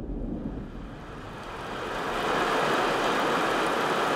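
Steady rain falling, swelling in about halfway through as a low rumble dies away.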